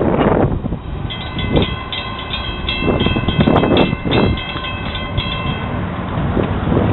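Railroad grade-crossing warning bell ringing in rapid, even strokes while the gate arms rise after the train has cleared; it stops near the end. Several loud rushing gusts swell and fade underneath.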